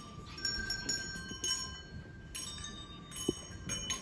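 Bells struck one at a time, about six strikes, each ringing on with clear high tones that overlap.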